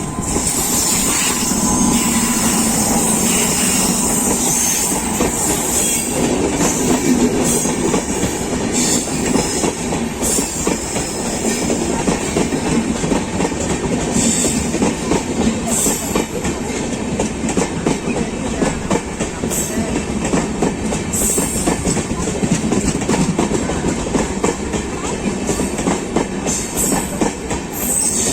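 Coaches of an electric-hauled express passenger train running past, the wheels clicking and clattering steadily over the rail joints.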